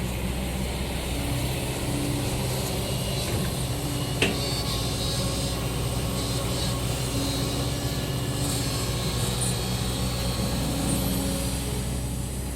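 Heavy diesel engine running steadily, with one sharp click about four seconds in.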